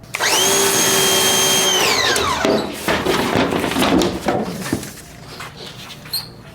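Electric pressure washer running for about two seconds, a steady motor whine over spray hiss, then the motor winding down with a falling pitch once the trigger is let go. A few seconds of scattered knocks and rattles follow.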